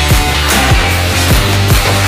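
Background rock music with heavy distorted guitars, bass and a steady drum beat.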